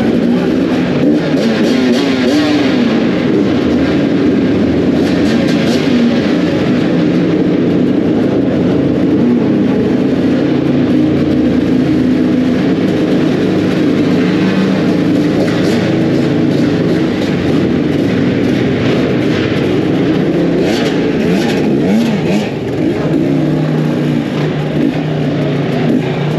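Dirt bike engine running under way, revving up and down continuously as it is ridden.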